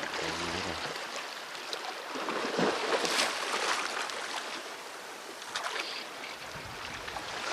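Steady wash of sea surf against shore rocks, a continuous noise that swells a little now and then.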